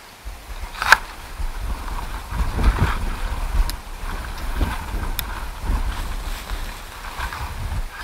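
Wind buffeting the microphone: a gusty low rumble that rises and falls, with a sharp click about a second in.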